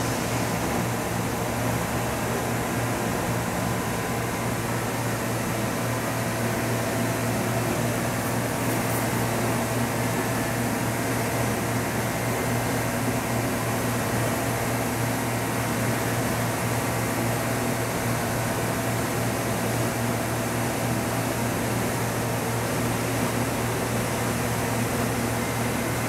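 Steady hum of an idling CNC bridge mill, with fans and pumps running: a low drone with several steady tones that neither rise nor fall, and no axis movement or cutting.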